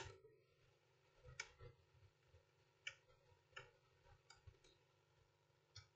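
Faint, scattered clicks of metal tweezers tapping and prodding small components on a laptop motherboard, about eight irregular ticks over a faint low hum.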